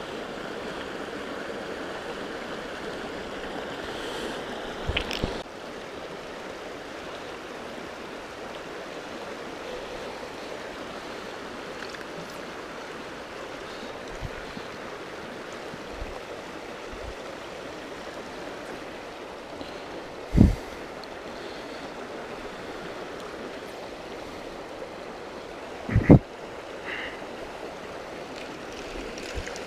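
Small rocky creek running over shallow riffles: a steady rush of flowing water. A few short low thumps break through it, around five seconds in and twice more in the second half, the last the loudest.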